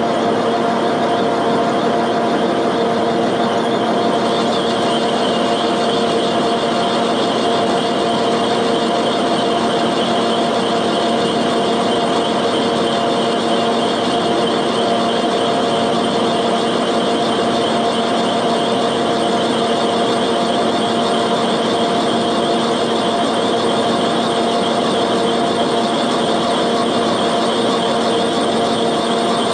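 Milling machine running a cutter down into a cast iron cylinder head's valve guide boss: a steady whine of several held tones over the rasp of the cut. A high tone drops slightly about four seconds in.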